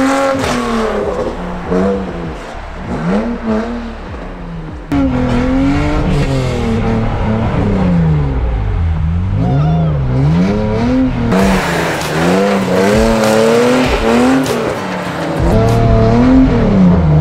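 Car engine revving hard and dropping back again and again while drifting, its pitch swinging up and down about every second. The sound jumps abruptly about five seconds in and again near eleven seconds, where a hiss of sliding tyres joins the engine for a few seconds.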